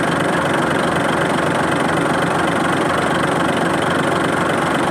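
Mitsubishi Fuso 6M70 inline-six diesel engine idling steadily.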